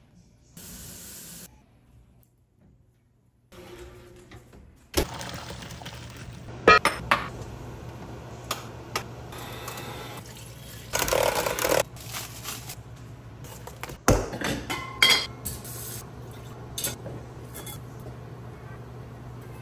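Cooking sounds: metal bowls, pans and utensils clinking and knocking, with liquid being poured into a stainless mixing bowl. A steady low hum comes in about five seconds in and stays under the clatter.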